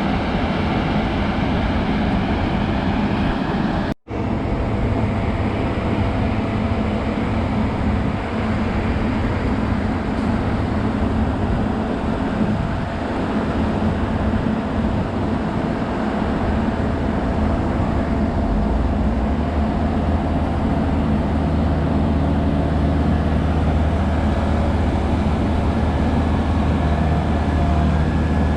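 Steady rumble of a running vehicle or heavy engine, cut off and resumed abruptly about four seconds in. A deeper, steadier engine hum comes in past the middle.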